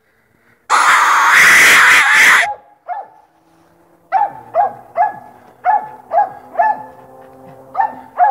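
Coonhound barking steadily at a treed raccoon, about two barks a second, starting about four seconds in. Before the barking, a loud burst of noise about a second in lasts about a second and a half.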